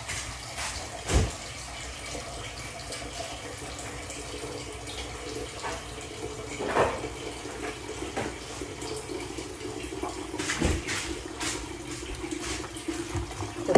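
Water running from a kitchen tap, with three clunks of pots or dishes, the loudest about a second in.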